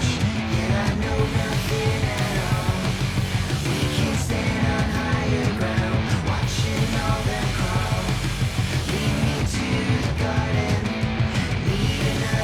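Loud punk-rock style background music with distorted guitar, drums and singing.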